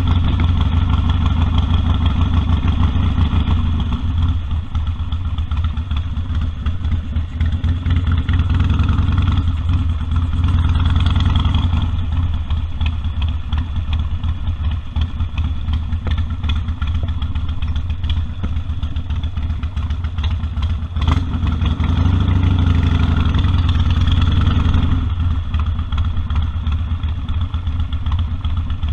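Harley-Davidson Sportster 1200's air-cooled V-twin running, its pulsing exhaust note swelling and easing off several times with the throttle. A single sharp click is heard about two-thirds of the way through.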